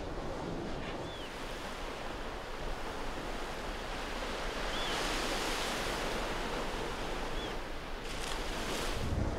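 Steady wash of sea surf and wind, swelling in the middle, with three faint short chirps. Near the end, wind buffets the microphone with a low rumble.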